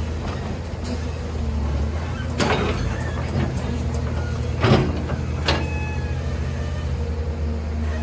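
Heavy machine engine running steadily with a low hum, broken by three short, sharp hissing bursts about two and a half, just under five and five and a half seconds in, the middle one the loudest.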